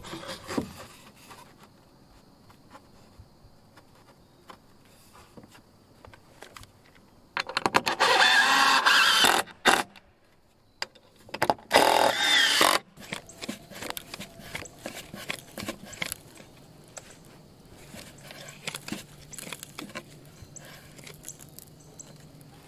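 Power drill running in two bursts, the first about two seconds long and the second just over a second, driving fasteners through a board into a twisted roof rafter to pull it straight. Light knocks and clicks of handling wood come before and after.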